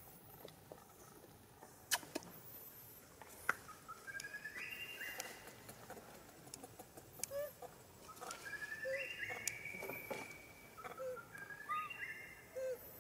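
Bird song: runs of clear whistled notes that step upward in pitch, repeated three or four times, with short lower notes between them. Two sharp clicks stand out in the first few seconds.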